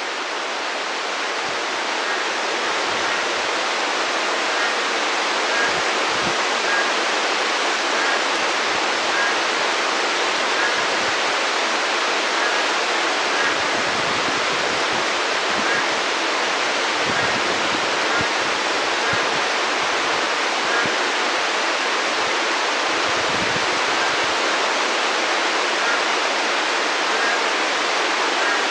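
Heavy monsoon rain falling steadily, a dense, even hiss with no let-up.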